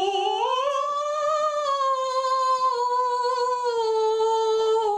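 A woman's voice singing one long held note as a vocal exercise. The note slides up about a second in, then drifts slowly down.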